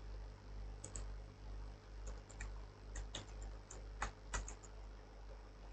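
Computer keyboard keys being typed: about a dozen light clicks in quick, uneven runs, then one louder key press near the end.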